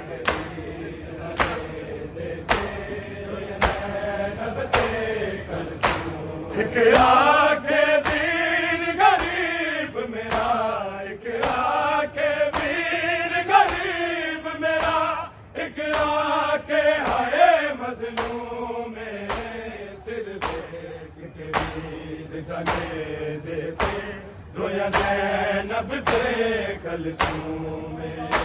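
A group of men chanting a Punjabi noha (Shia mourning lament) together, with sharp, evenly timed chest-beating slaps of matam about once a second. The voices swell louder through the middle.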